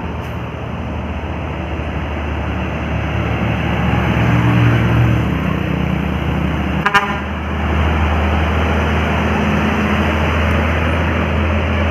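Passing traffic on a hill road: vehicle engines running under steady tyre and road noise, swelling as something heavier goes by. One short horn toot comes about seven seconds in.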